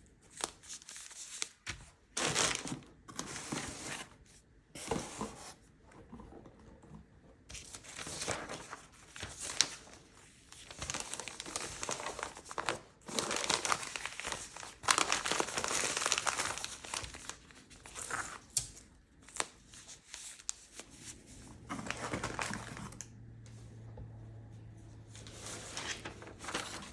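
Packing material being crinkled and rustled by hand in irregular bursts while an order is wrapped for shipping. A faint low steady hum comes in about two-thirds of the way through.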